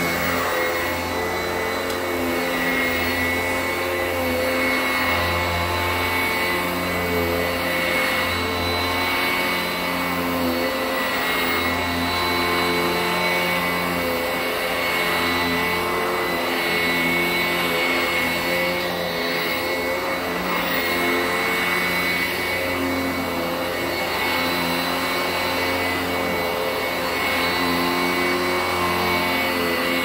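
Sanitaire 886E upright commercial bag vacuum running on carpet, a steady motor whine whose lower tones swell and fade every couple of seconds as it is pushed back and forth.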